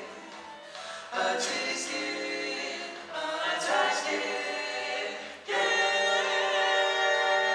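Male vocal quartet singing a cappella in close harmony into hand microphones, with no instruments. Short phrases of chords, the last a long held chord from a little past halfway.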